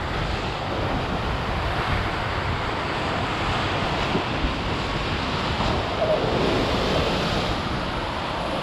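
Sea waves breaking and surging over the rocks at the foot of a cliff, with wind buffeting the microphone.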